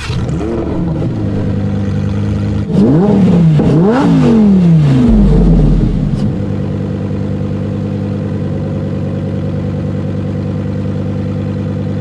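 A sports car engine idling, revved twice in quick succession about three and four seconds in, each rev rising and falling, then settling back to a steady idle.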